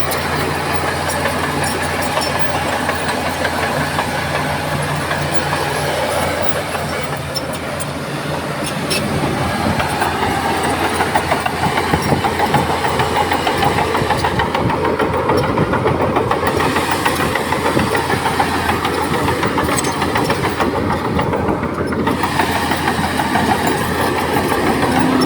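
Bulldozer's diesel engine running, steady at first, then working harder and louder from about nine seconds in, with scattered clicks and clanks.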